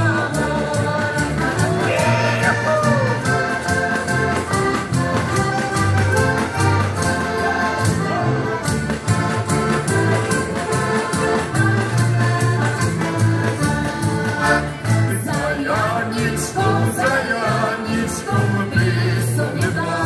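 Live folk music on heligonkas (diatonic button accordions), with a pulsing bass and sustained chords over a drum-and-cymbal beat. Singing voices come in and out, near the start and again near the end.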